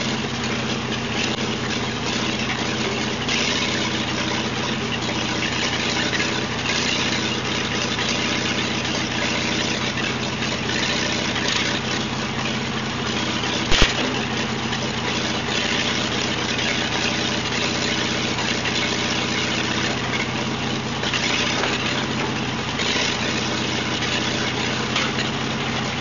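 Backhoe's engine running steadily, with a single sharp knock about halfway through.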